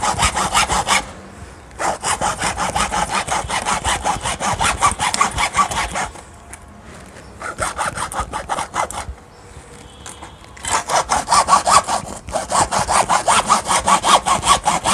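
Hacksaw blade cutting through the plastic housing of an RO carbon filter cartridge: runs of quick back-and-forth strokes broken by three short pauses.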